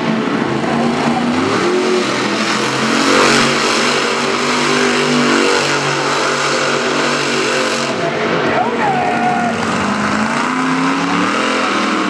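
Monster truck engine revving hard and continuously during a freestyle run, its pitch climbing and dropping as the throttle is worked, loudest about three seconds in.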